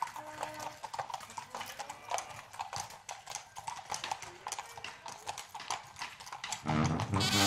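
Horses' hooves clip-clopping on pavement, irregular hoofbeats from several horses walking, with faint voices. Near the end, brass-band music starts playing.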